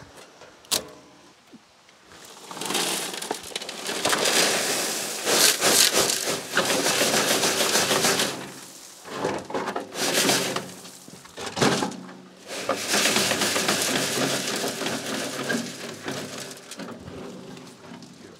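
Crushed gravel tipped out of a wheelbarrow, pouring and sliding onto a pile in a loud, steady rush. It comes in several spells with short breaks between them, after a single sharp knock at the start.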